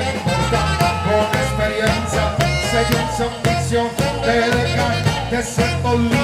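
Upbeat band music with a bouncing bass line and a steady beat, from the band playing on the base of a giglio, the festival's carried wooden tower.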